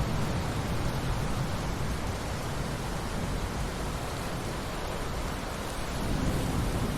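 Thunderstorm: steady rain falling as an even hiss, with the low rumble of thunder dying away over the first second or two and a low rumble swelling again about six seconds in.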